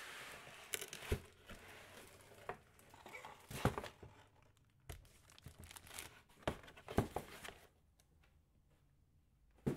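Packaging being handled during an unboxing: crinkling wrap with scattered sharp knocks and taps. It goes quiet for the last couple of seconds, then a single knock.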